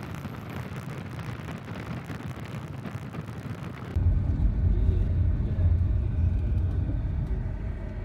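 Wind and road noise from a moving passenger van, heard as an even rushing hiss. About halfway through it switches abruptly to a louder, deep steady rumble of engine and tyres heard inside the closed cabin, with little hiss.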